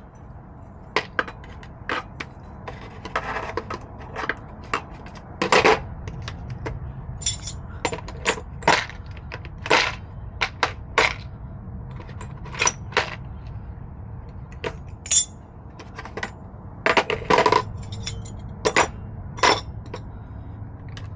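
Tire plug kit tools being put away: an irregular run of sharp metallic clinks and knocks, some ringing briefly.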